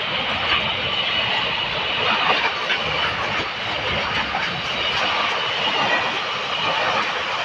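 Container freight train passing close by: a steady rumble and rattle of the flat wagons and their containers, with irregular wheel clacks.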